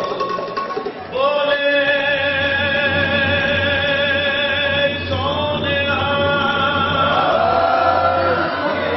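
Sikh kirtan: voices singing a devotional hymn in long held notes. One long note is held from about a second in, a new note starts around five seconds, and the notes waver near the end.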